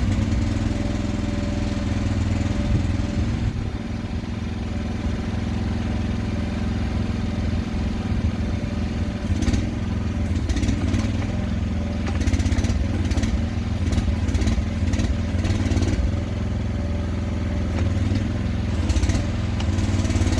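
Small engine of an AGT Industrial MH12R mini excavator running steadily, just started. Intermittent knocks and clatter join in from about nine seconds in.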